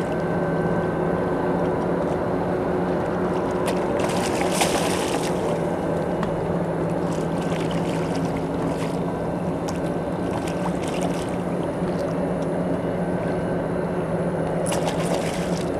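A boat motor hums steadily, with brief bursts of splashing about four seconds in and again near the end as a hooked fish thrashes at the surface.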